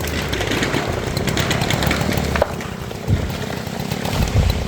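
Two-stroke chainsaw idling with a steady low hum that drops away about halfway through, followed by a couple of dull thuds.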